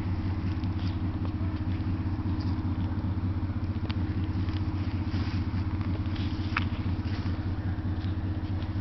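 A steady low engine hum with even, closely spaced overtones, like a motor idling, with a few faint clicks over it.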